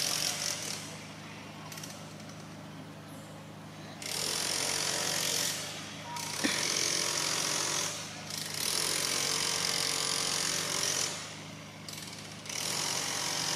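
Cicadas buzzing in repeated high-pitched bursts, each one to three seconds long with short gaps between, over a steady low hum.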